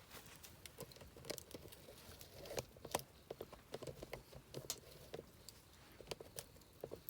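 Campfire crackling: irregular sharp pops and snaps, several a second, with a louder snap about three seconds in.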